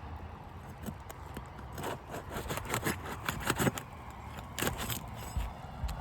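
Tamko Heritage asphalt shingles being worked and lifted by hand, giving a cluster of short scrapes and crackles about two to four seconds in and another sharp one near five seconds. A low wind rumble sits underneath.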